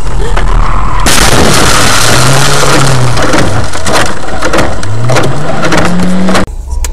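Car crash picked up by a dashcam microphone: about a second in, a sudden, very loud rush of noise breaks out, full of knocks and crunches. It lasts about five seconds, with a low tone rising twice underneath, then cuts off abruptly.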